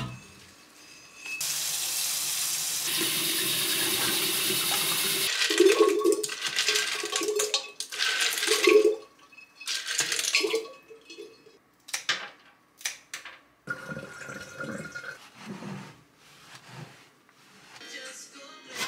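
Kitchen tap running steadily into a stainless-steel sink, then louder uneven pouring and splashing as water is emptied from a vase. After that come scattered light knocks and clinks of ceramic vases and flower stems being handled in the sink.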